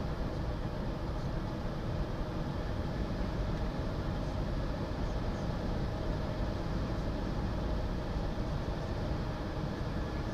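Steady road and engine noise inside a moving car's cabin: a continuous low rumble of tyres and engine with no changes.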